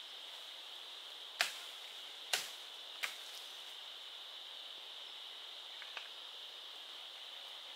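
Three sharp knocks in quick succession, about a second apart, and a fainter one a few seconds later, over a steady high-pitched chirring of forest insects.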